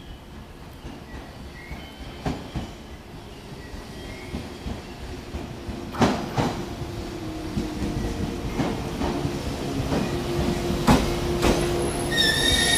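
A 485 series electric express train approaches and pulls into the platform, growing steadily louder. From about halfway, its wheels give pairs of clicks over the rail joints under a steady hum, and a high-pitched squeal begins just before the end.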